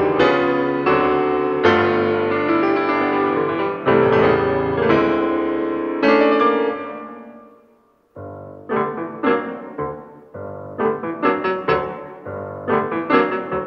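Background piano music: sustained chords fade away about seven seconds in, then a new passage of quicker, shorter notes begins about a second later.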